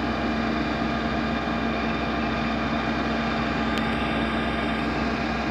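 Steady mechanical hum holding one constant low tone, with a faint click about four seconds in.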